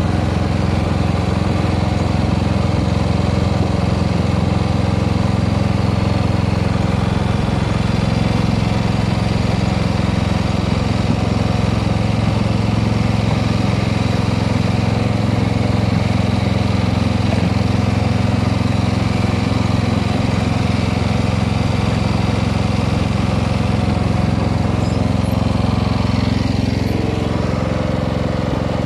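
MTD riding lawn tractor's engine running steadily while it pushes a home-made wooden snow plow through snow. Its note shifts a little near the end.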